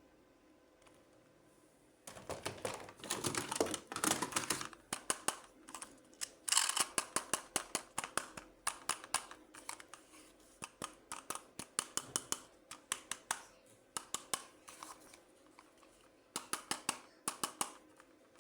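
Toy and packaging being handled close to the microphone: rustling, scrunching packaging and many sharp plastic clicks, several a second, starting about two seconds in, pausing briefly near the end, then clicking again.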